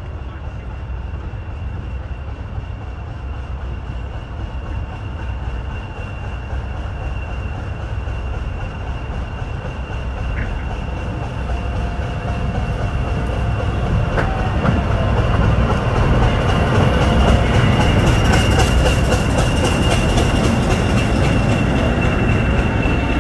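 Diesel locomotive hauling coaches slowly into the station and past, its engine rumble growing steadily louder as it nears. Wheel squeal and clatter from the rails come in as the locomotive and coaches pass, near the end. A steady high tone runs underneath throughout.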